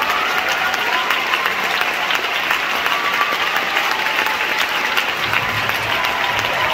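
Concert audience applauding steadily, many hands clapping densely.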